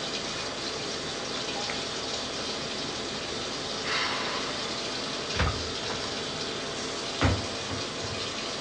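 Water running steadily from a tap, filling containers, with two dull knocks about five and seven seconds in.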